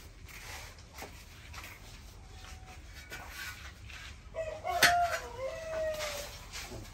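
A rooster crows once, a long held call of about two seconds starting about four and a half seconds in. Near the start of the crow comes a sharp knock, the loudest sound, as a large steel plough disc is set down on the ground, with lighter knocks of handling before it.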